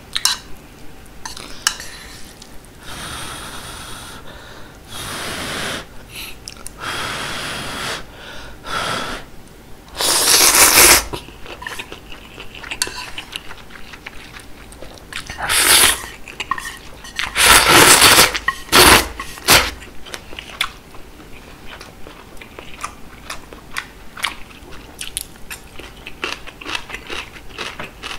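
Ramen noodles and seaweed slurped from a spoon in several long, noisy pulls, the loudest about ten seconds in and again around eighteen seconds. In between and in the last third come wet chewing and small mouth clicks.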